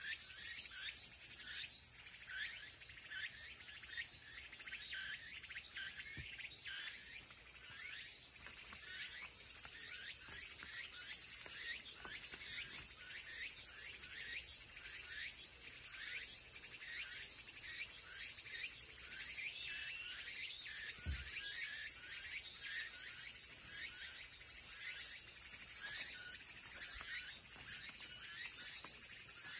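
Insects buzzing outdoors in a steady, high-pitched chorus, with a run of short rising chirps repeating about once or twice a second.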